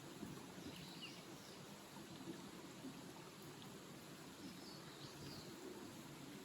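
Faint outdoor ambience: a stream running steadily, with a few faint bird chirps about a second in and again around five seconds.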